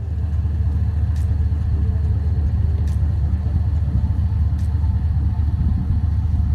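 LS1 V8 of a Holden VX SS Commodore running steadily without revving, a loud, deep, even rumble of rapid pulses.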